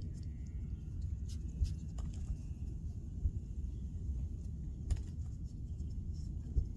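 Steady low outdoor rumble with a few soft clicks and faint bird chirps.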